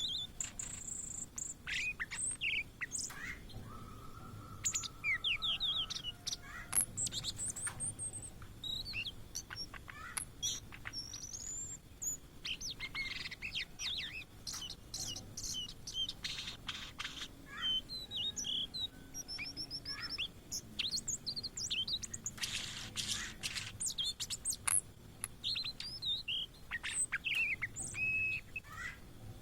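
Blue-and-white flycatcher singing continuously: a fast, varied run of high, clear whistled notes and slurs, with a couple of harsher, scratchier passages.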